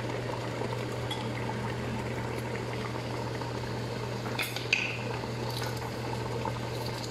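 Chicken in broth boiling in a steel pot: a steady bubbling, with a steady low hum underneath. A couple of short clicks come about four and a half seconds in.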